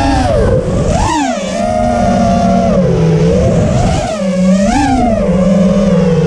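A 6S FPV quadcopter's brushless motors and propellers whine, the pitch swooping up and down with the throttle. There is a sharp climb about a second in and another near five seconds, with a steadier, lower drone between them.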